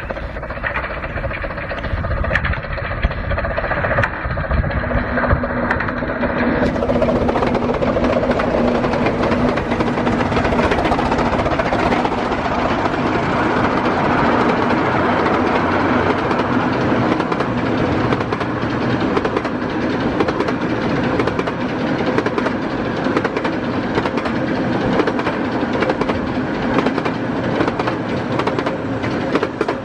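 Steam train on the Romney, Hythe & Dymchurch Railway running at speed, a continuous loud noise of locomotive exhaust, running gear and wheels on the rails, with a steady low tone held for several seconds early on.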